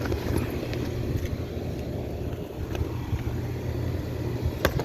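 Air-conditioning condensing units running: a steady low hum with a few faint clicks and a short tap near the end.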